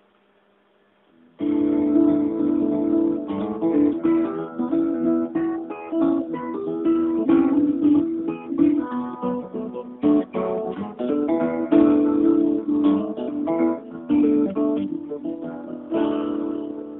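Theme music, starting suddenly about a second and a half in after near silence.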